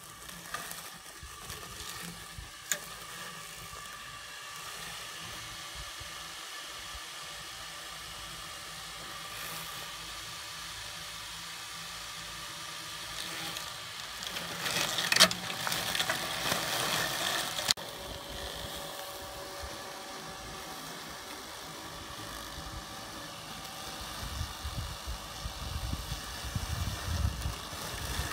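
The small YouNoMow E-2 robotic mower's drive motors whir steadily as it rolls over grass. The sound grows louder, with a few sharp clicks, about halfway through as it passes close by, and a low rumble comes in near the end.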